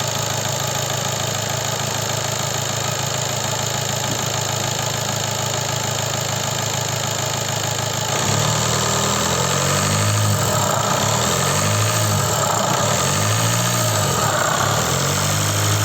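2014 Seat Leon 2.0 TDI four-cylinder diesel engine idling steadily, then revved up and down several times from about halfway through. The rattling knock it had is no longer heard after an oil-flush treatment, but a noise is still there.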